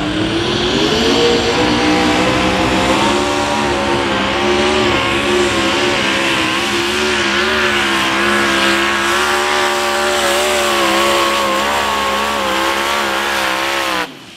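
Twin-turbocharged small-block V8 of a mini rod pulling tractor revving hard as it launches with the sled, then held at high rpm under load with the pitch wavering slightly. It cuts off abruptly near the end.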